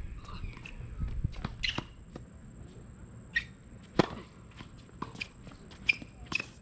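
Tennis rally on an outdoor hard court: a series of sharp pops from racket strikes and ball bounces, the loudest a nearby racket hit about four seconds in.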